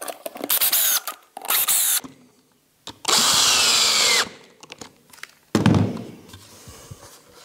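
Cordless drill-driver driving screws into a wooden sled in three short runs, the last and longest dropping in pitch as the screw pulls tight. A thump follows near the end.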